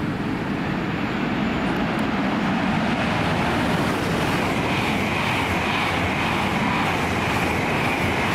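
Train running past on the track: a steady loud rumble, with a steady high whine joining about halfway through.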